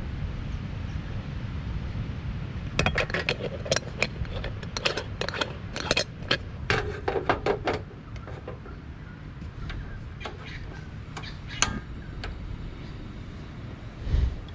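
Metal clinks and taps of a stovetop moka pot being filled with ground coffee by spoon and screwed together: a dense run of sharp clicks for about five seconds, then a few scattered clicks as the pot is set on a portable gas stove. A steady low rumble runs underneath.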